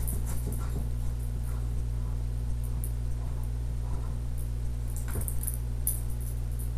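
A dog making faint small whimpering noises over a steady low electrical hum from the microphone, with a brief louder sound about five seconds in.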